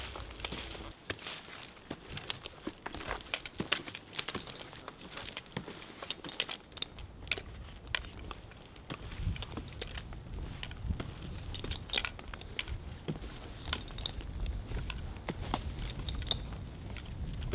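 Metal climbing hardware clinking and jingling on a climber's harness, with irregular sharp knocks of boot climbing spikes biting into tree bark as he climbs the trunk. A low rumble joins about halfway through.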